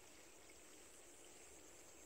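Near silence: faint outdoor ambience with a thin, steady high-pitched tone.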